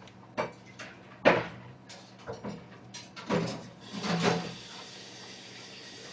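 Kitchen clatter of dishes being cleared and rice being fetched: a string of knocks and clunks, the loudest about a second in, then a steady hiss from about halfway that stops near the end.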